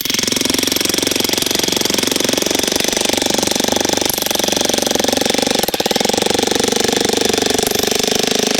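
Demolition jackhammer hammering steadily and rapidly, its chisel bit driven into a firewood log to split it.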